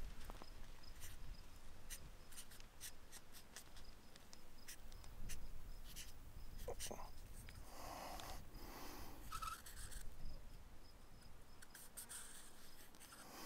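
A marker writing on a painted metal post: faint, irregular scratching and squeaking of the felt tip, stroke by stroke, as a name is signed.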